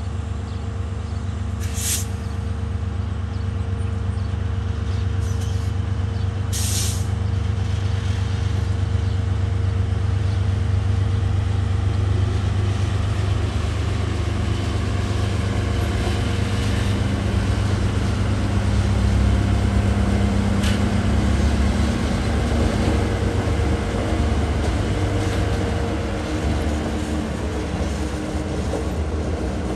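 Diesel locomotive TR07 hauling a ballast train past at low speed: a steady low engine drone that swells as it passes, then eases off. Two short hisses of air come about 2 and 6.5 seconds in.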